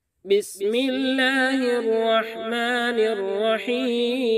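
Channel intro jingle: a solo voice singing slow, drawn-out notes with a strong waver, after a brief swish near the start.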